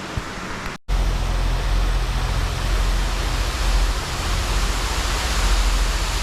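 Steady rushing noise with a heavy low rumble under a hiss. It cuts out briefly just under a second in and comes back louder.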